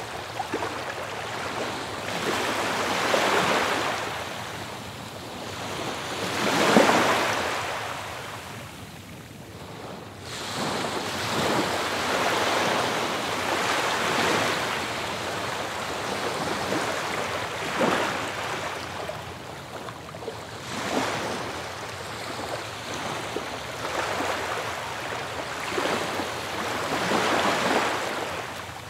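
Ocean surf washing onto a beach, each wave swelling and falling back every three to four seconds, the loudest about seven seconds in.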